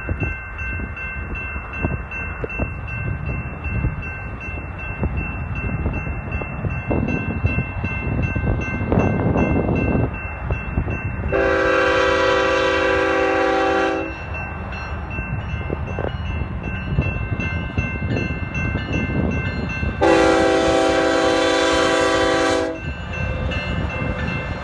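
Diesel freight locomotive's air horn sounding two long blasts, each about two and a half seconds, some eight seconds apart, as the train approaches. Heavy wind rushing and gusting on the microphone underneath.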